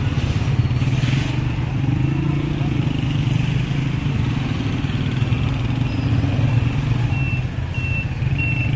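Busy street traffic, with a steady low engine drone from motor vehicles. From about five seconds in, a run of short high beeps comes about two a second.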